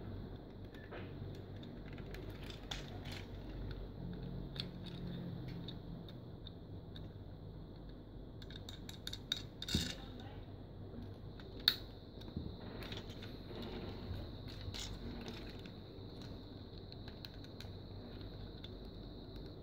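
Plastic parts of a toy robot figure clicking and clacking as they are handled and folded into place, with scattered small clicks and two sharper snaps near the middle.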